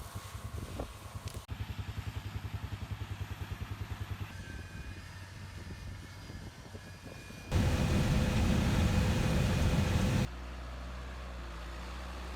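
Farm machinery engines running in a series of short cuts: a fast, evenly pulsing engine, then a louder rushing stretch of about three seconds, then a steady low hum.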